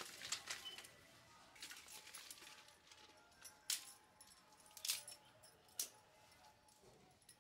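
Dry twigs and sticks being handled and snapped by hand: a sharp crack right at the start, then single cracks and small crackles spaced about a second apart.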